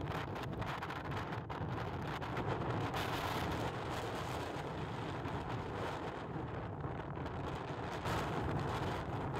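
Storm wind at gale force 10, gusting 11, blasting across the microphone: a steady, heavy rushing and buffeting, strongest in the low end, that never lets up.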